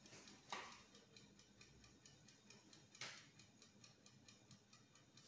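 Faint, rapid, even ticking of a kitchen timer, with two brief soft hisses about two and a half seconds apart.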